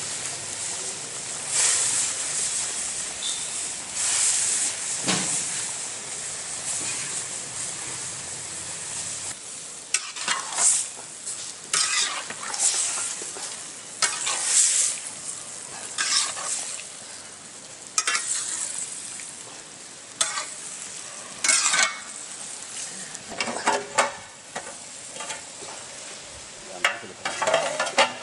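Fish curry bubbling and sizzling in an iron wok, then a metal spatula scraping the pan as it stirs the fried fish pieces through the gravy in repeated strokes, about one every second or two.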